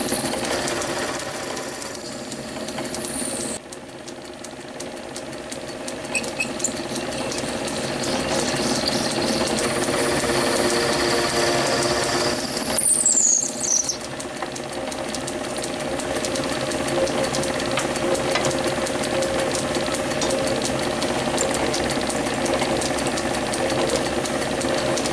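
Small metal lathe running while a twist drill in the tailstock chuck drills through a spinning brass piston blank. A high-pitched squeal from the drill cutting comes in the first few seconds and again about halfway, falling in pitch and cutting off suddenly, over the lathe's steady hum.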